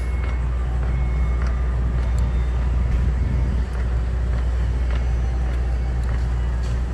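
Steady low rumble of wind buffeting the microphone while riding a mobility scooter, with a few faint clicks and rattles.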